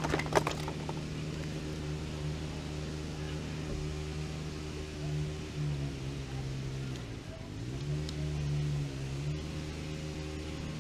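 An engine idling with a steady hum, its pitch shifting about five seconds in and then sagging and recovering a couple of seconds later. A few sharp clicks right at the start.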